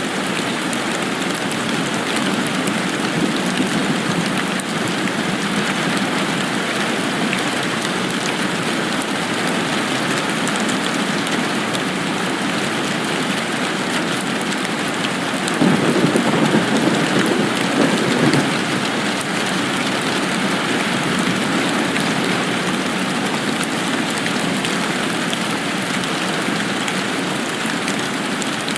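Steady rain falling, an even hiss, with a louder low rumble for about three seconds around the middle.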